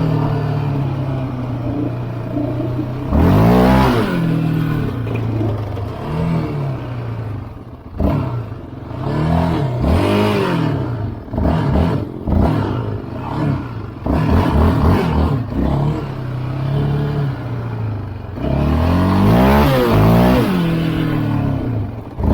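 ATV engine idling and revving again and again, its pitch rising and falling with the throttle. There are two long rev-ups, about three seconds in and near the end, and a run of short throttle blips in between.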